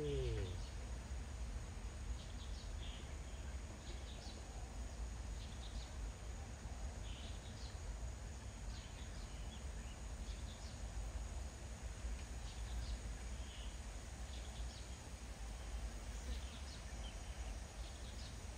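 Outdoor wildlife ambience: short, high chirps come scattered every second or so over a low steady rumble.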